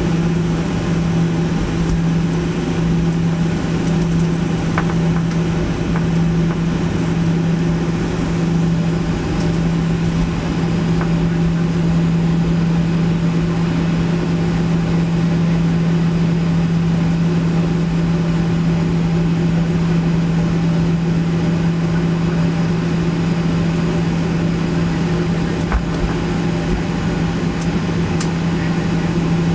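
Boeing 737-800 cabin during taxi: its CFM56 engines at idle, heard as a steady low drone with a constant hum above it, unchanging throughout.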